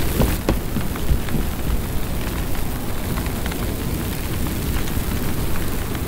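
Fire burning with a steady low rumble and scattered small crackles.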